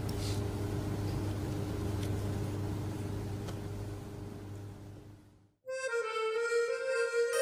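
Steady hum of an air conditioner in the room, fading out about five seconds in. After a short silence, music starts with long held notes forming a chord.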